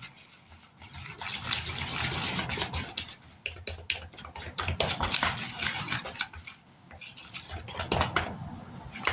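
Wooden spoon stirring cornbread batter in a mixing bowl: quick repeated scraping and knocking against the bowl, with a short pause about two-thirds of the way through.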